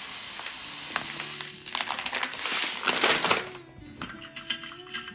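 Granulated cane sugar pouring from a paper bag into a glass jar, a grainy hiss in surges that stops about three and a half seconds in. A few light knocks follow as the bag is set down and the jar handled, over soft background music.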